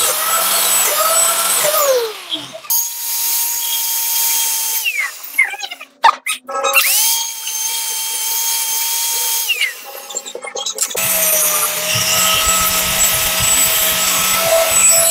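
Handheld power tool working a metal motorcycle chassis part, running in several bursts that each end in a falling whine as it spins down. A few sharp knocks come around the middle. From about eleven seconds on it runs steadily with a low rattle added.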